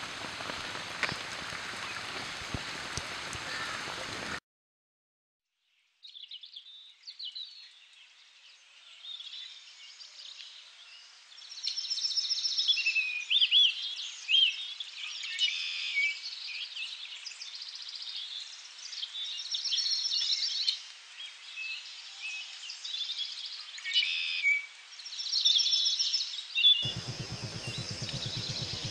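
Several birds chirping and whistling, many calls overlapping and busiest in the middle. Before them there are a few seconds of steady hiss that cut off into a brief silence, and a low steady noise joins near the end.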